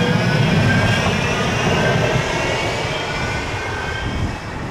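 Manchester Metrolink M5000 (Bombardier Flexity Swift) tram passing close by, its wheels rumbling on the rails under several thin whining tones from the electric traction equipment. The rumble fades after about two seconds as the tram draws away.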